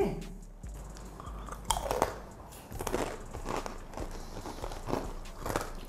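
Crunchy packaged snack chips being bitten and chewed by two people: a run of irregular, crisp crunches starting about two seconds in.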